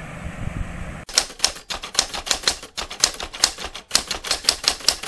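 Typewriter key clacks as a text-typing sound effect: a fast, uneven run of sharp clicks, about four or five a second, starting abruptly about a second in. Before it comes a second of outdoor wind and rushing-water noise.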